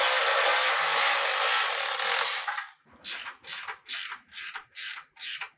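Cordless electric ratchet running for about two and a half seconds as it spins a bolt down, then stopping. It is followed by a hand ratcheting wrench worked in short back-and-forth strokes, about three clicking bursts a second, as the bolt is snugged by hand.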